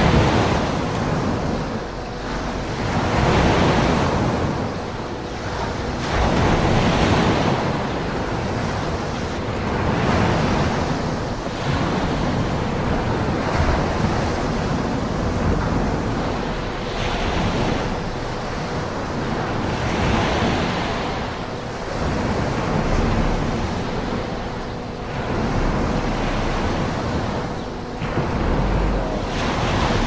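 Ocean waves breaking in surf: a continuous rushing wash that swells and falls back every three to four seconds.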